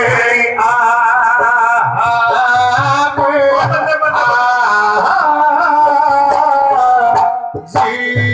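Live Punjabi folk singing: a singer holding long, wavering notes over instrumental accompaniment with a steady low beat. Near the end the singing breaks off and drum strokes come in.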